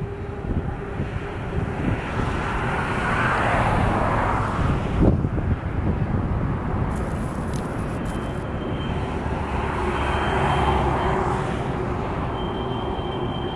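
Long freight train rolling across a steel truss bridge, heard from afar: a steady rumble with a low hum that swells twice. A faint high whine joins about eight seconds in.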